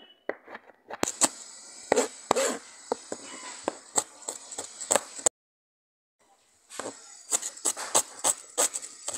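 Kitchen knife chopping a red onion on a cutting board: quick, irregular taps of the blade striking the board. The sound cuts out completely for about a second and a half midway, then the chopping goes on.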